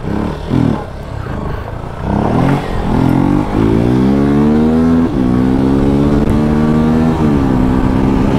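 Motorcycle engine: a short blip of the throttle near the start, then the bike pulls away from about two seconds in, revving up and shifting up through the gears, the pitch climbing and dropping back three times.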